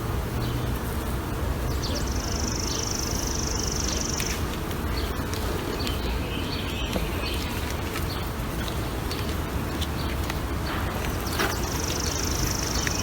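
Low, steady hum of honeybees from an open hive, with faint clicks of frames being handled. A high, even buzz comes in twice, about two seconds each time.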